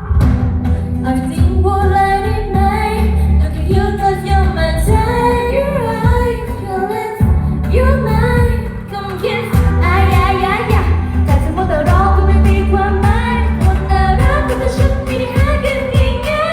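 Pop song with a woman singing a melody over a heavy, steady bass beat, starting abruptly.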